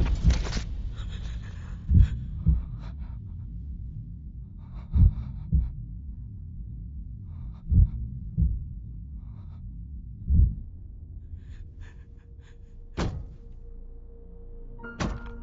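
Heartbeat sound effect in a film soundtrack: low double thumps, a beat and a softer echo, repeating about every three seconds, four times. Near the end two sharp hits come in with a steady held tone.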